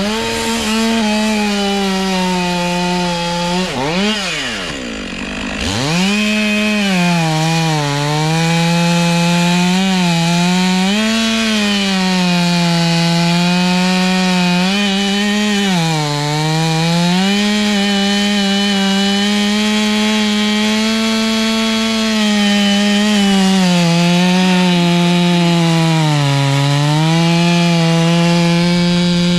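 Stihl 500i chainsaw, a fuel-injected two-stroke with a 36-inch bar, cutting through big oak wood at full throttle, its pitch sagging and recovering as the chain bites under load. Around four to six seconds in, the engine drops off briefly and revs back up before the long, steady cut continues.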